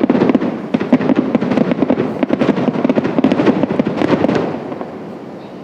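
Fireworks finale: a dense, rapid barrage of bursts and crackles that thins out and dies away about four and a half seconds in.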